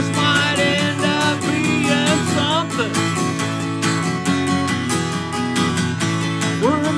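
Acoustic guitar strummed in a steady, even rhythm, with a man's singing voice over it in the first few seconds and again near the end.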